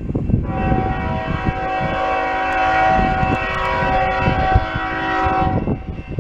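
Air horn of a CSX GE ES44AH locomotive sounding one long, steady chord, starting about half a second in and cutting off near the end, over the low rumble of the train.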